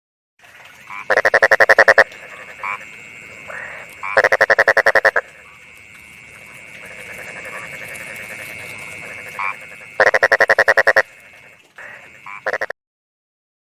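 Frogs croaking. A loud, rapidly pulsed croak about a second long comes three times, with shorter calls in between, over a steady high-pitched background chorus. The recording cuts off abruptly near the end.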